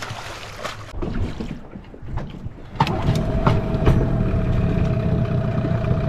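A few knocks, then about three seconds in a dinghy's outboard motor comes in and runs steadily: a low rumble with a steady whine over it.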